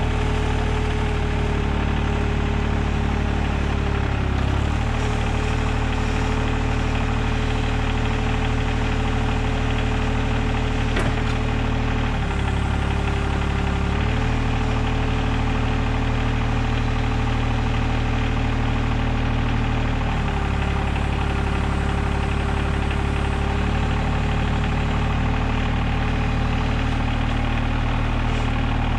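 Compact tractor's diesel engine running steadily as its front-end loader handles a heavy log; the engine note dips briefly several times as the loader works.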